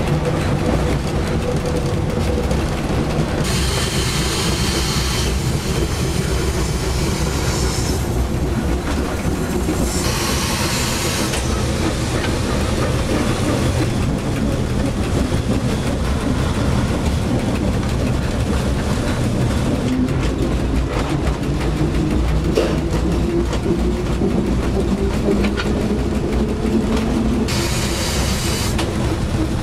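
Mariazellerbahn narrow-gauge train running along the track: a steady rumble of wheels on rails with clickety-clack. Short spells of high hissing wheel squeal come in a few seconds in, again about a third of the way through, and near the end.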